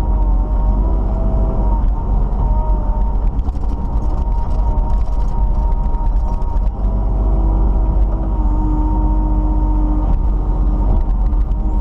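Kubota KX91 mini excavator's diesel engine running steadily with a loud low drone, overlaid by whining tones that shift in pitch as the machine works.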